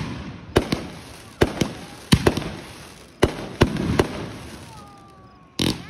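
Fireworks going off in a rapid string of sharp bangs, often in close pairs, each dying away over about half a second. There is a short lull about four and a half seconds in, then another loud burst near the end.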